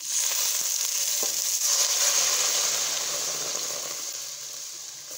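Milk poured into a hot pan of oil and roasted dry fruits, sizzling loudly the instant it hits and slowly dying down as the pan cools.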